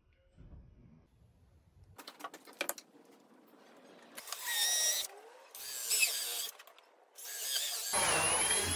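AEG cordless drill/driver with a long extension bit driving screws into a pine timber frame, running in three short bursts, the last the longest. A few light knocks of handling come before.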